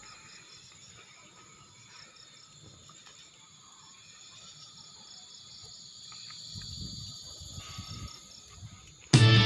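Evening insect chorus, a steady high chirring with a faint regular pulsing, typical of crickets at dusk. A low rustle comes about two-thirds of the way through, and loud guitar music cuts in near the end.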